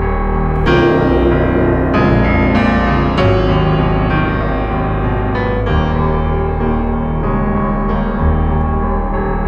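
Keyboard music: piano-like notes struck one after another over a steady bass line.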